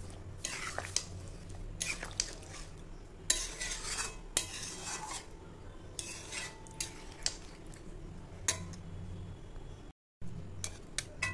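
A metal spatula stirring and scraping through a wet chicken-and-potato curry in a metal kadai, with irregular clinks and scrapes against the pan.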